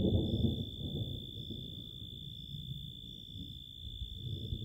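Thunder rumbling low, fading over the first second or two and swelling again near the end.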